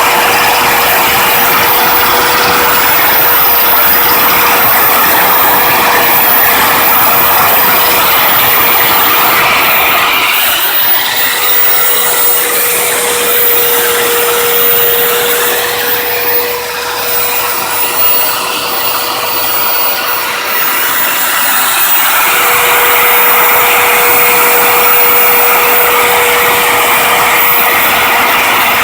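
Lathe running with a milling setup cutting a keyway slot: continuous machine noise with a steady whine and gear clatter. Partway through, the sound eases and gets lighter for several seconds, then the fuller noise picks up again.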